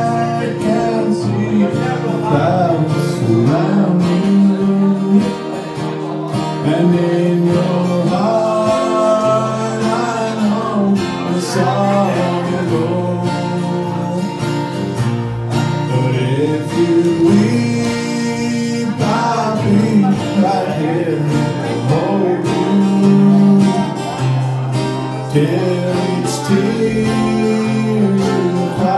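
Live acoustic group playing a song: strummed acoustic guitars and a mandolin, with singing into microphones.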